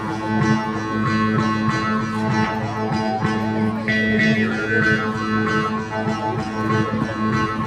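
Nepali morchunga (mouth harp) tuned to A2, played with fast rhythmic plucking: a steady buzzing drone with a melody of overtones shifting above it.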